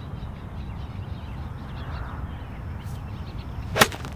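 Golf iron striking the ball from a rough lie under a tree: one sharp crack near the end, over a steady low background rumble.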